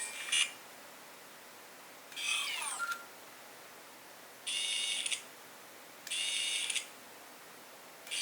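vivo V17 Pro pop-up selfie camera sound effects played through the phone's speaker as the camera rises and retracts. There are five short electronic sounds, each about half a second, about every two seconds. The early ones sweep in pitch; the later ones are steady, bright tones.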